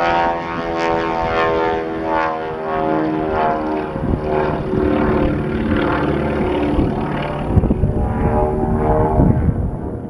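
Twin Beech 18's two radial engines and propellers droning through an aerobatic display pass, the pitch shifting several times as the aircraft manoeuvres.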